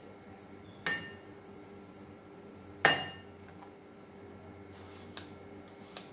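A spoon knocking against a drinking glass as ice cream is scooped into it: two sharp clinks, each with a short ring, about two seconds apart, the second the louder. Two faint taps follow near the end.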